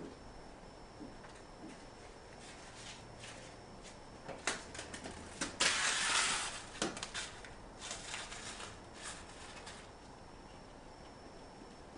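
A kitten playing fetch on a tile floor: scattered light clicks and scuffs, with a louder rasping scrape lasting about a second near the middle.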